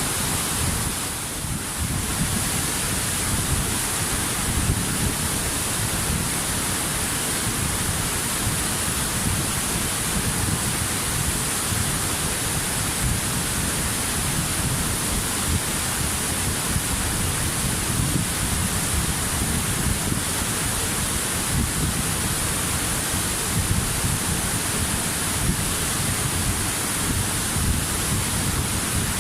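Waterfall: steady rushing water with no break, dipping briefly in level about a second in.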